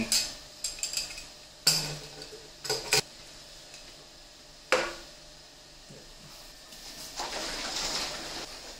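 Stainless steel Cornelius (corny) keg lid being seated and clamped shut, a series of sharp metallic clanks and clicks. Near the end, cleaning solution sloshes inside as the keg is tipped and shaken to mix it.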